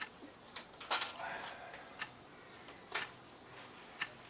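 Sharp metallic clicks and clinks, about one a second, with a short clattering ring about a second in: hand tools knocking against the window's metal hinge hardware.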